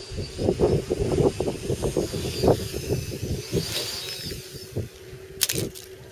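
Tarot FY450 quadcopter's electric motors and propellers whining as it comes down, then crashing onto the ice with a short clatter about five and a half seconds in. Wind buffets the microphone throughout.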